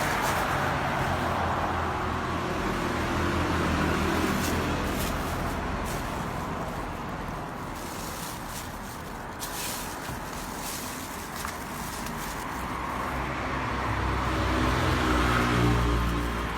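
Motor vehicle engines running and passing, the hum swelling twice.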